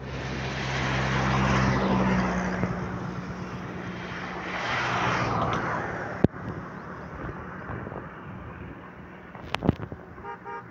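An engine running somewhere out of sight, with a steady low hum under a loud rushing noise that swells, dips and swells again before fading about six seconds in. A single sharp click follows, then quieter background with a few brief clicks near the end.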